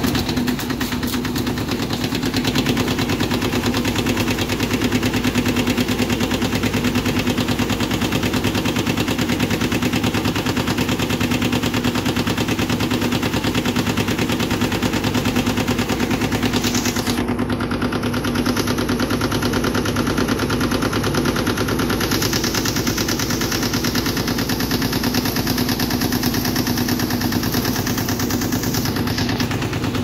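15 kg top-loading washing machine spinning its tub at high speed on spin: a steady motor-and-drum hum with a fast, continuous rattle.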